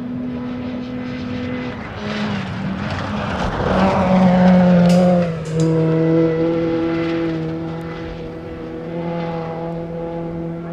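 Rally car at full throttle on a gravel special stage, engine note rising as it passes close, loudest about four to five seconds in with a sharp crack or two, then holding a steady note as it carries on down the road.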